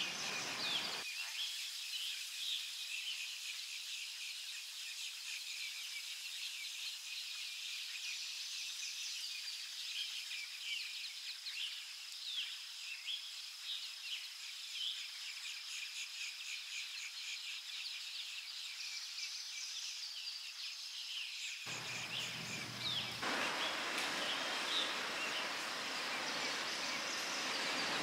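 Outdoor summer ambience: a steady high-pitched insect drone with many short bird chirps over it, sounding thin with no low end for most of the stretch. A broader rushing noise comes in over the last few seconds.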